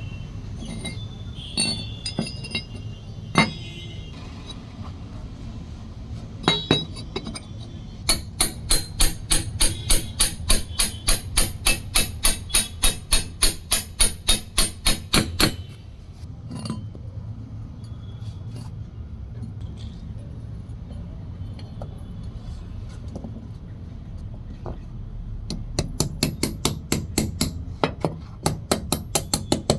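A hammer striking metal in a quick, even run of about three blows a second for several seconds, with scattered single knocks before and after and a second run of blows near the end, over a steady low hum.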